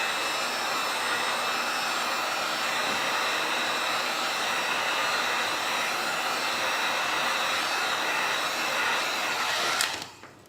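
Heat gun blowing a steady rush of hot air, with a few faint steady tones in it, switched off about ten seconds in. It is warming a phone's screen glass to soften the adhesive beneath it.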